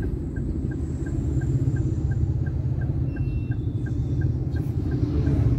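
Inside a car's cabin, the engine's steady low rumble at idle in slow traffic, with an even ticking of about three ticks a second, like a turn-signal indicator.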